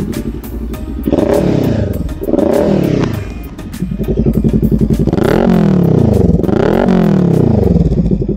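Kawasaki Ninja 400's parallel-twin engine running through a Leo Vince LV-10 slip-on exhaust, revved in about four throttle blips. Each blip rises and falls in pitch, and the revs are held higher over the second half. The sound cuts off suddenly at the end.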